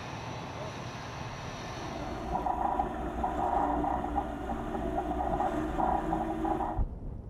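Heavy 8x8 truck of a Bastion coastal missile system driving: low engine rumble, joined about two seconds in by a louder steady whine. The sound cuts off abruptly near the end.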